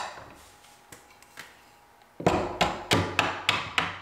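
Hammer tapping a steel hinge pin back down into the knuckles of a door hinge. After a faint click as the pin is set in place, there are about six sharp, ringing strikes starting about two seconds in, roughly three a second.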